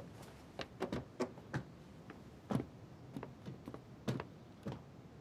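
Footsteps of several people on stone paving: faint, irregular taps and clicks, about two a second.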